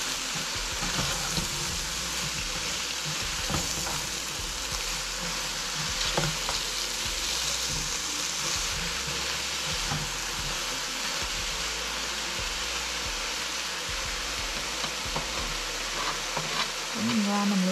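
Eggplant and ground pork sizzling in a frying pan as they are stirred, a steady hiss with a few light knocks of the utensil against the pan.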